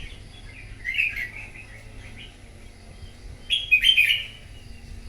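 Red-whiskered bulbul singing its fighting song: two short, loud warbled phrases, one about a second in and another near the end.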